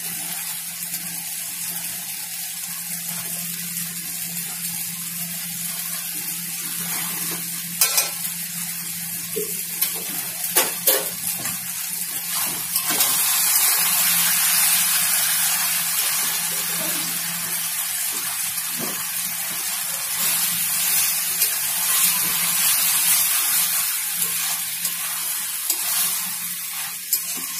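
Thick banana-flower curry sizzling in a metal kadai as it is stirred and scraped with a spatula, with a few sharp knocks of the spatula against the pan. The sizzle grows louder about halfway through.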